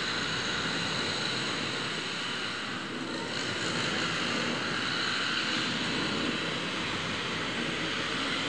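Jet airliner flying low overhead, its engines a steady noise.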